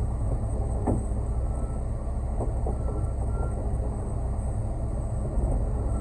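Concrete mixer truck's diesel engine running steadily, with a few light knocks, the clearest about a second in.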